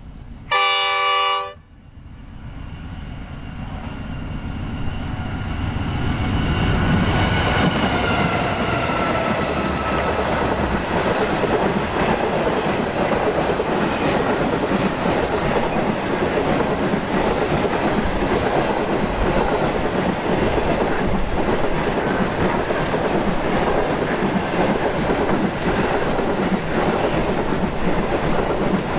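Pacific National NR class diesel-electric locomotive sounds one horn blast, about a second long, then the Indian Pacific passenger train rushes past at speed. The noise builds over several seconds as the locomotive passes, with tones sliding down in pitch, then the long rake of carriages rolls by with a steady rumble and the wheels clicking over rail joints.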